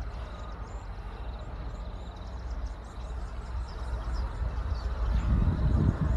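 Wind rumbling on the microphone outdoors, with faint high chirping over it. The wind grows stronger about five seconds in.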